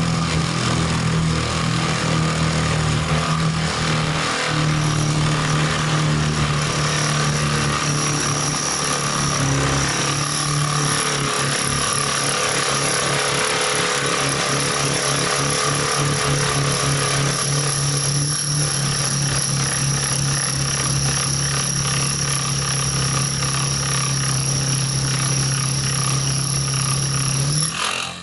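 Electric drill running under load, boring a resharpened 10 mm bit into 10 mm thick duralumin plate without a pilot hole, with a steady motor hum; it stops near the end.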